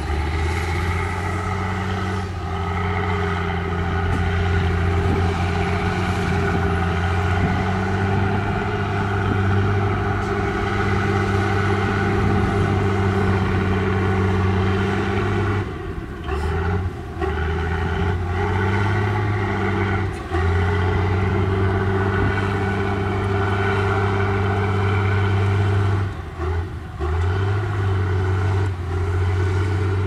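Heavy diesel engines of a tipping dump truck and a crawler bulldozer running steadily under load, a constant low drone with a few short breaks in the second half.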